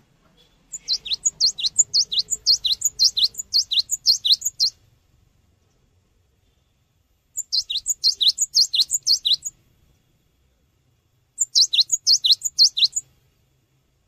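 Cinereous tit (gelatik batu) singing: three bursts of fast, repeated high notes, each note sweeping sharply downward. The first burst lasts about four seconds; the second, about two seconds, comes midway; the third, shorter, comes near the end.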